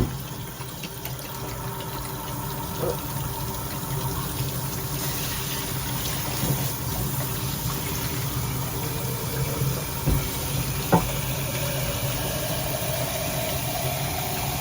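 Water running through a shower head, a steady spray with a low hum underneath and a few light knocks.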